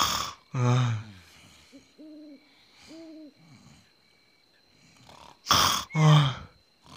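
Cartoon pig snoring: a loud snore about half a second in, two soft whistle-like tones on the out-breath around two and three seconds in, then two more loud snores near the end.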